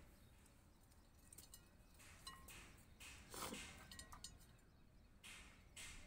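Faint gritty rustling of a sandy soil mix with small pebbles, scooped by hand and dropped into a plastic pot, in a few short scrapes.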